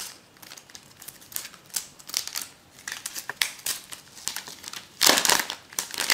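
Thin plastic wrap crackling as it is handled and peeled off a new smartphone. Scattered crinkles build to a loud burst of crackling about five seconds in.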